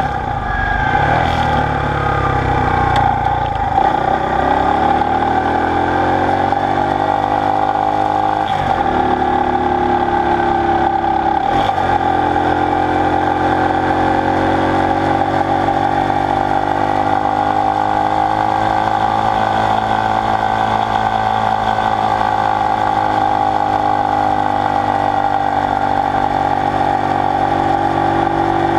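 Honda SL90's small single-cylinder four-stroke engine running under way. It climbs in pitch with brief breaks about 4, 9 and 12 seconds in, typical of gear changes, then runs on steadily with the pitch slowly rising and falling.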